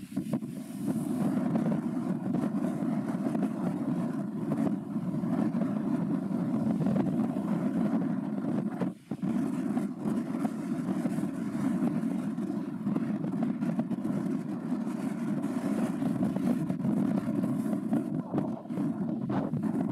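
Steady low rumbling background noise, with a brief dropout about nine seconds in.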